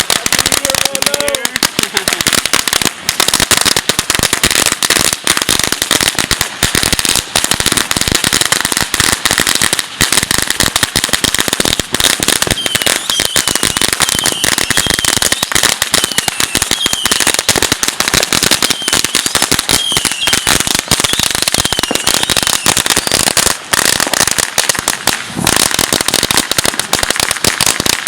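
Firecrackers going off in a long, unbroken run of rapid crackling and popping.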